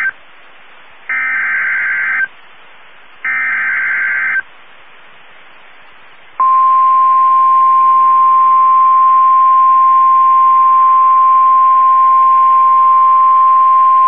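NOAA Weather Radio Emergency Alert System (SAME) header: screeching digital data bursts about a second long, the last two about a second apart. About two seconds later the steady single-pitch weather radio warning alarm tone starts and holds, marking a new warning about to be read.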